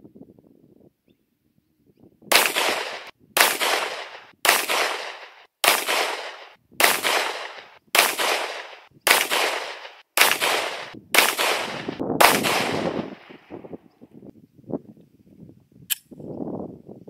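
Zev OZ9 9mm pistol firing a string of ten shots of Winchester 147-grain Winclean ammunition at a steady pace of about one shot a second, each report ringing out briefly. The string starts about two seconds in.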